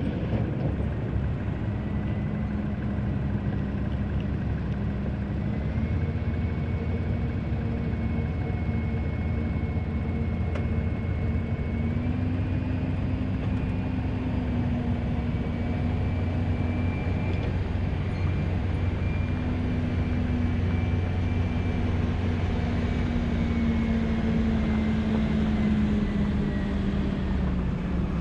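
A vehicle engine running steadily, its pitch stepping up slightly twice and easing down near the end.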